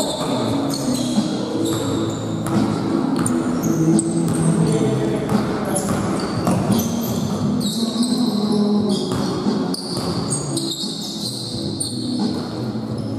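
Indoor basketball game: a ball bouncing on the court again and again, short high squeaks, and voices echoing in a large hall.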